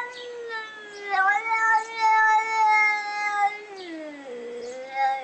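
Cat yowling in long, drawn-out, wavering cries. The longest is held for over two seconds, then slides down in pitch about four seconds in and rises again near the end.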